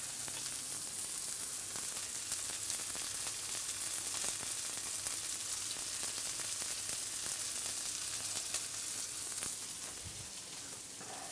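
Filet mignon steaks sizzling in melting butter in a stainless-steel frying pan over lowered heat: a steady, fine crackle that eases slightly near the end.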